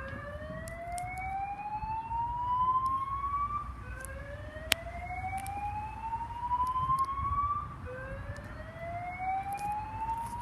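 Fire alarm sounding a slow whoop: a rising tone that sweeps upward over about four seconds and starts again from the bottom, three times. One sharp click a little before halfway.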